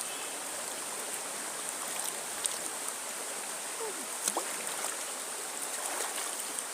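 River water flowing over a shallow stream bed, a steady rushing with a couple of faint clicks.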